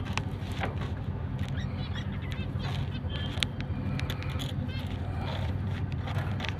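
Small caged parrots (lovebirds and budgerigars) chirping and chattering in many short, high calls, over a steady low hum.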